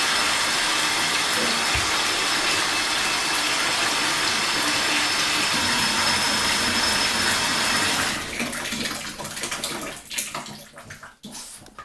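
Water running from a bathtub faucet in a steady, loud rush that stops about eight seconds in, leaving softer, uneven sounds.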